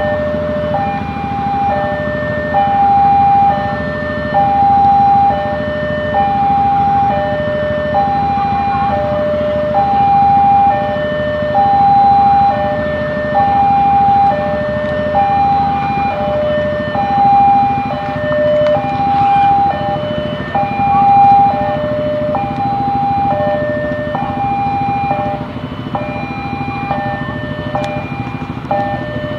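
Indonesian railroad crossing warning alarm sounding while the gates are down for an approaching train: a high and a low electronic tone alternating steadily, about one cycle every two seconds, over a steady low rumble.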